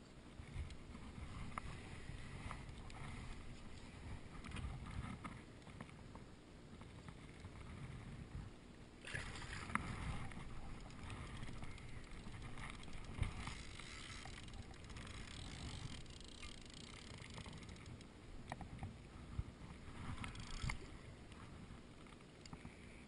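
Water sloshing and splashing around a float tube while a big wels catfish is fought on the line, with dull knocks and rubbing from handling the rod and reel. The splashing turns brighter and hissier about nine seconds in and eases off near the end.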